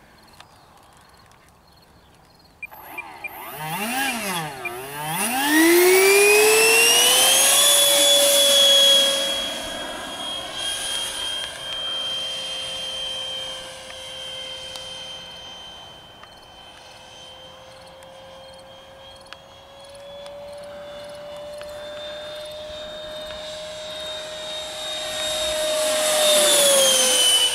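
90 mm electric ducted fan of an RC MiG-17 jet. It dips twice in pitch, then spools up to a loud high-pitched whine and holds at full speed. The whine swells and fades as the model flies by, and grows loud again near the end as it passes close.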